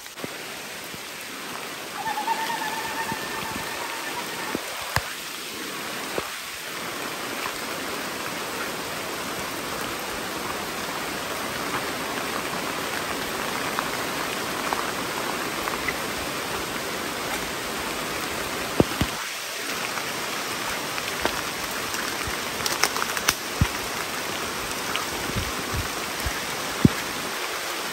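Steady rain falling on forest foliage, with scattered snaps and knocks of footsteps pushing through wet undergrowth. A short whistling call sounds for about two seconds, starting about two seconds in.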